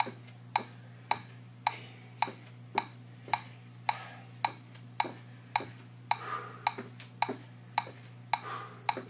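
Electronic metronome clicking a steady beat, a little under two clicks a second, over a low steady hum. A few short, soft rushing sounds fall between the clicks.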